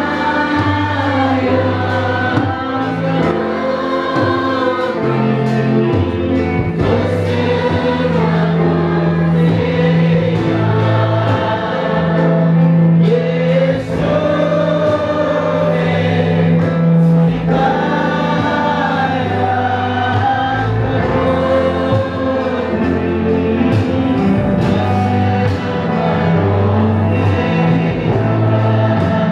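A mixed choir of young women and men singing a Christian song together over held low notes that change every few seconds.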